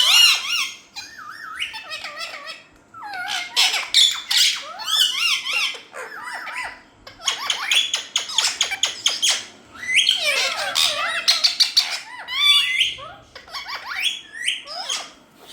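Indian ringneck parakeets squawking and chattering: a run of loud, warbling calls with quick trills, broken by short pauses.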